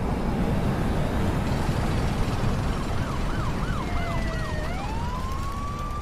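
A siren sound effect: about three seconds in, a fast yelp rising and falling about four times a second starts up, then slides up into a long, steady wail. It plays over a dense, steady rushing noise with a low rumble.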